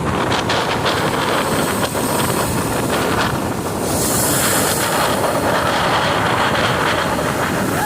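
Strong wind buffeting the microphone: a loud, steady rushing noise with no let-up.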